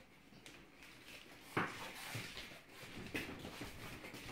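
Faint knocks and handling noise as plastic ice-pop moulds are carried and set down, with the sharpest knock about a second and a half in.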